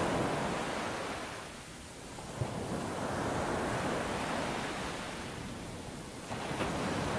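Ocean waves breaking and washing in, a steady rush of surf that ebbs and swells back twice.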